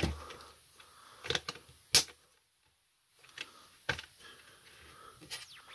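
Five or so separate sharp clicks and knocks, the loudest about two seconds in, from handling the freshly pumped stroller wheel and its pump.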